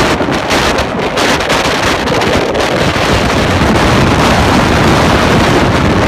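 Strong wind blowing across the microphone: a loud, continuous rush of noise with heavy low buffeting.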